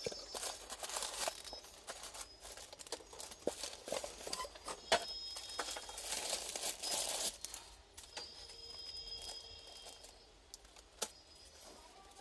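Hands handling tools and parts during the repair of a breaker hammer: scattered clicks and light knocks with rustling, busiest between about four and seven seconds in. Faint high thin tones come and go.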